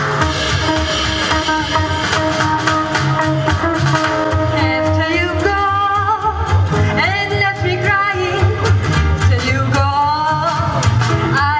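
Jazz-style song through a PA: instrumental accompaniment with a steady beat, and from about five seconds in a woman sings with vibrato into a handheld microphone.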